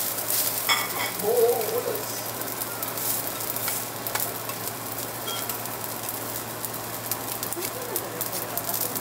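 Fried rice with mushrooms sizzling on a hot steel teppanyaki griddle, with two metal spatulas scraping and clicking against the plate as the rice is chopped and turned. The clicks come in many short, irregular taps.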